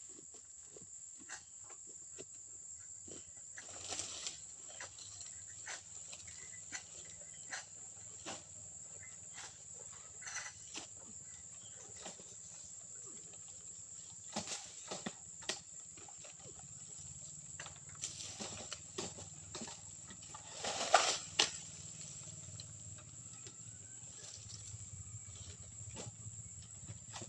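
Steady high-pitched insect drone, with scattered clicks and rustles and one louder rustling burst about two-thirds of the way through.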